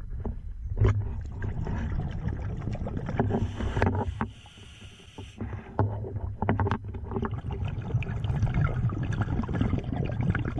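Scuba diver breathing through a regulator underwater: exhaled bubbles rumble and crackle past the housing, broken about halfway through by a quieter inhale hiss.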